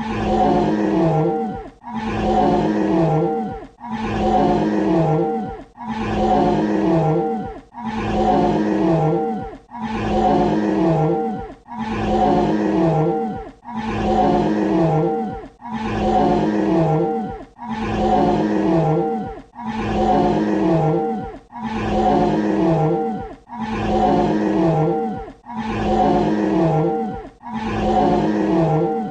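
Dinosaur roar sound effect: the same short, pitched roar repeated in a loop about once every two seconds, each one dropping in pitch at its end before a brief gap.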